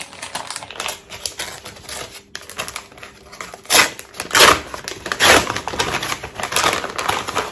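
Hands opening a parcel's packaging: a rapid run of crinkles and clicks, with a few louder rustles from about four seconds in.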